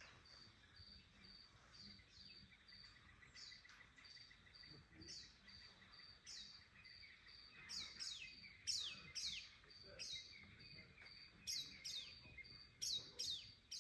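Faint bush ambience: birds calling in repeated short whistles that sweep down in pitch, coming more often in the second half, over an insect's steady pulsing chirp.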